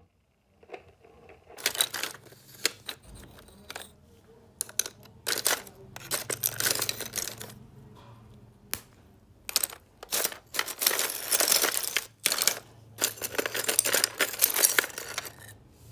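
Chunks and shards of ice in a plastic freezer drawer stirred and picked through by hand, clinking and rattling against each other in irregular bursts with sharp clicks. The clatter is busiest in two longer stretches in the second half.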